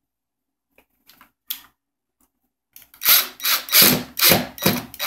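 Cordless drill driving a screw into a wooden panel in short trigger pulses, about two a second, starting about three seconds in. A few faint clicks come before it.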